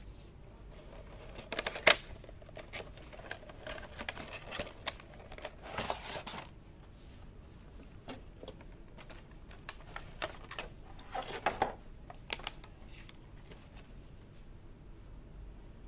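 Scattered clicks, taps and small knocks of handling, coming in short clusters, with the sharpest knock about two seconds in.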